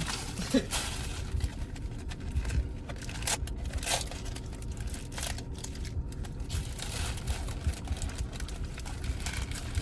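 Paper burger wrapper crinkling and rustling in scattered short rustles as a burger is unwrapped and handled, over a steady low rumble.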